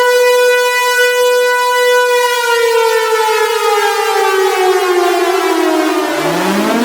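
Civil defense siren wailing on a steady high pitch, then winding down in a long falling glide. Near the end it starts to wind up again with a rising tone.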